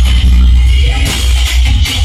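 Very loud music played through a DJ sound system's speaker stacks, with heavy bass.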